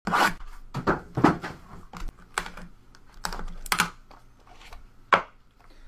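Irregular sharp clicks and taps of hands handling a cardboard Opulence basketball card box, lifting and working its lid.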